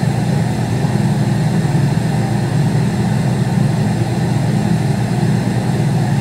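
Sped-up audio from a fast-forwarded video playing back, heard as a steady low hum.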